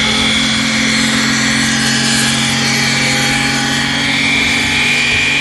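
Lexus car doing a burnout: its engine held at high, steady revs while the spinning rear tyres squeal continuously against the asphalt.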